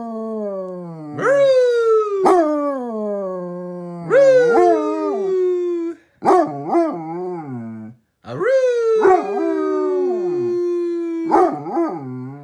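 Basset hound howling: a string of about five long, loud howls, each jumping up sharply and then sliding down in pitch, one near the middle wavering up and down.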